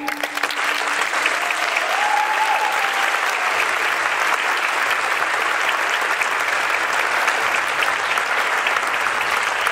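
Audience applauding, dense steady clapping that swells in at the start and holds.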